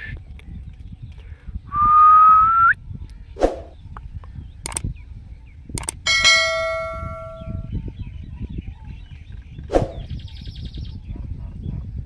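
A rose-ringed parakeet gives one harsh screech, about a second long, with a rising whistle in it, about two seconds in. About six seconds in, a bell-like chime rings for over a second, and a few sharp clicks are heard in between.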